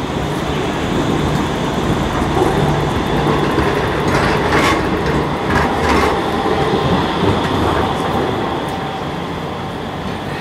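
Low-floor street tram passing close by on street rails: a steady rolling rumble that swells as it goes past, with a few sharp clacks near the middle, then fades as it draws away.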